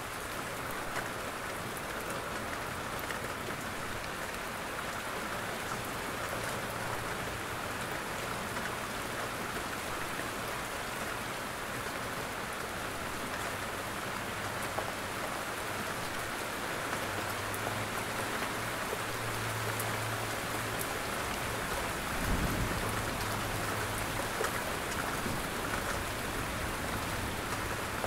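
Steady rain falling, with separate drops tapping on a roof. A brief low thump comes about three-quarters of the way through.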